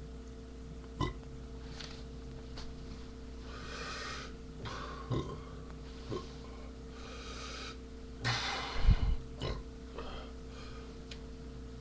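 A man burping, the loudest burp about nine seconds in, with a few short breathy sounds and small clicks between, over a steady low hum.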